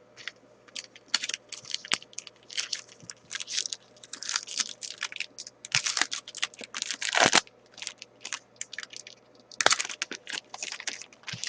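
A foil trading-card pack wrapper being torn open and crinkled by hand, a run of irregular crackling and rustling that is loudest about six to seven seconds in and again near ten seconds.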